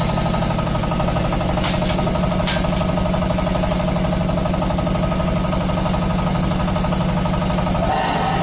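Diesel engine of a QT4-30 hydraulic block-making machine running steadily with a fast, even knocking beat. There are two light metallic clicks in the first few seconds, and the low engine note dips briefly near the end.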